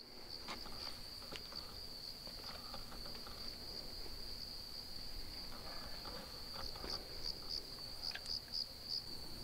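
Crickets trilling steadily at one high pitch through the night air, with a few faint clicks of handling underneath.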